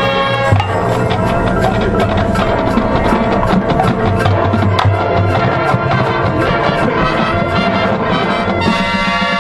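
Marching band playing, brass and drum line together. A fast, even run of percussion hits drives the music from about half a second in, and full held brass chords come back in near the end.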